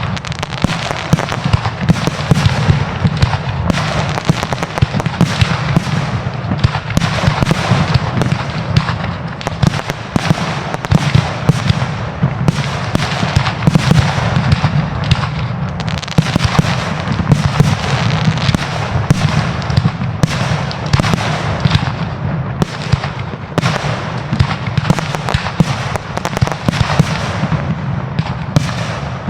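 Fireworks display going off continuously: a dense barrage of shell and battery bangs several times a second, with crackle between them.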